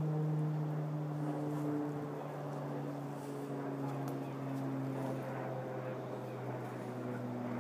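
A motor drones steadily, its low hum slowly sinking in pitch.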